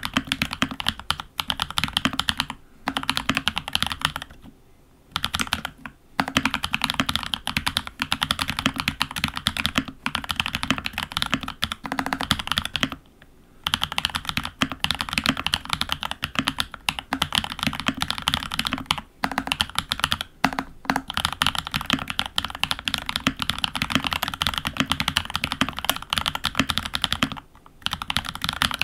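Continuous typing on a FEKER68 mechanical keyboard with lubed Holy Panda-clone switches (Huano Iceblue stems and springs in Gateron housings) and Olivia-clone keycaps, a dense run of key strokes broken by a few brief pauses.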